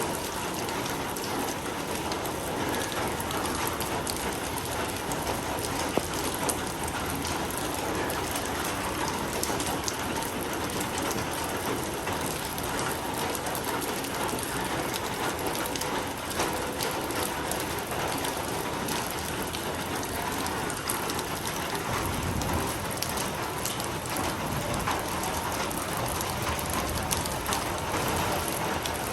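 Steady rain falling, with the close patter of individual drops.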